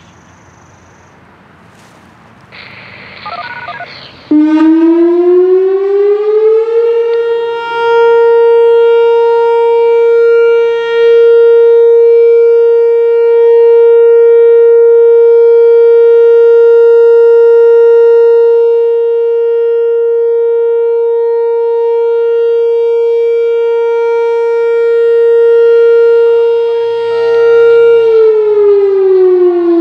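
Whelen WPS 4004 electronic warning siren sounding a steady 465 Hz tone. It glides up to pitch about four seconds in and holds for about 23 seconds, its loudness swelling and dipping as the speaker head rotates. Near the end it starts to wind back down.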